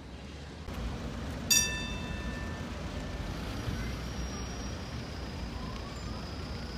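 Tram-stop traffic noise with a single bright ding about a second and a half in, ringing for about a second: a tram's bell. Toward the end a tram's electric drive whines, a thin high tone with a fainter tone gliding upward in pitch as the tram moves.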